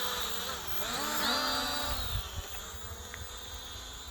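RC F89 quadcopter drone's electric motors and propellers buzzing; the pitch dips, rises sharply about a second in, then sinks again and the buzz fades.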